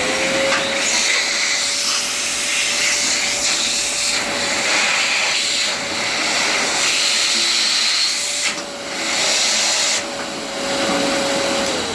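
2200-watt drum vacuum cleaner switched on: the motor spins up at once to a steady high whine over loud rushing air. The sound dips briefly twice in the second half, and the whine falls in pitch near the end as the motor is switched off and runs down.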